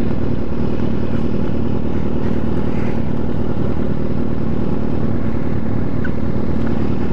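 Motorcycle engines idling steadily, a low even rumble with no revving.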